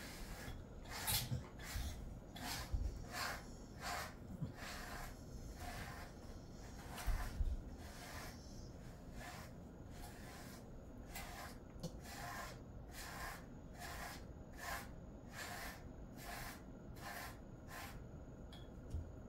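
Pet grooming brush stroking through a dog's coat: a rhythmic scratchy swish about twice a second, with a few low bumps in the first half.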